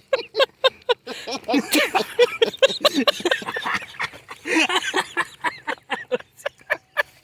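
Men laughing in short, choppy bursts, with sharp clicks in between.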